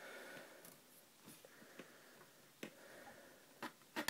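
Faint, scattered clicks and taps of fingers handling a small diecast model truck cab and its plastic mirror. The sharpest click comes near the end.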